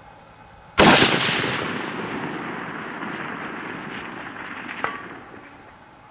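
A single rifle shot from a Howa HLR in 6.5 Creedmoor: a sharp crack about a second in, then a long echo that rolls away and fades over the next few seconds. A small click follows near the end.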